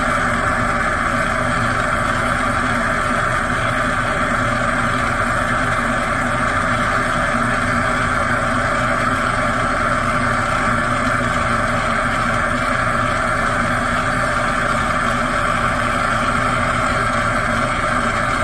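Oxy-fuel torch burning steadily with a large, bushy flame played into a ceramic crucible to melt silver: a loud, even rushing noise that does not change.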